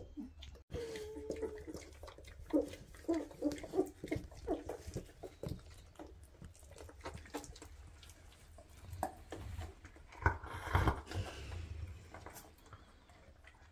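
Two-and-a-half-week-old Weimaraner puppies whimpering and squeaking in a quick run of short, high calls over the first few seconds, with soft clicking suckling sounds as they nurse. About ten seconds in there is a louder breathy sound, as the mother dog yawns.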